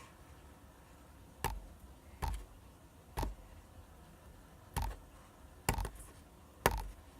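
Hands working a jiggly, squishy slime-like material, giving six short taps or clicks about a second apart, each with a dull thump underneath.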